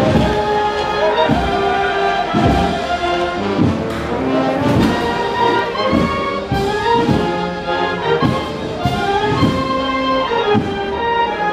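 Brass band playing a slow Holy Week processional march: held brass chords over a steady bass drum beat, about one stroke a second.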